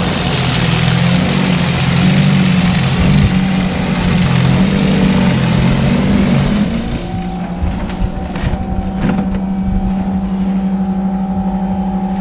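Snow blower engine running, its pitch wavering under load for the first seven seconds or so, then settling to a steadier, slightly quieter note.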